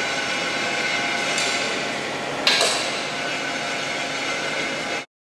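Ficep Excalibur CNC steel-beam processing line running with a steady machine hum and whine. There is one sharp metallic clank about two and a half seconds in. The sound cuts off suddenly near the end.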